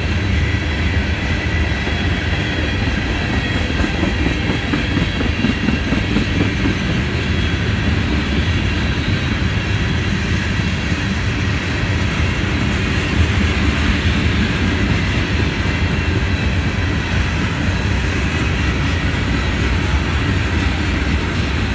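Freight train cars (covered hoppers and tank cars) rolling past on steel rails. It is a steady, loud rumble with the clatter of wheels over the track, and a faint high ringing rides on top.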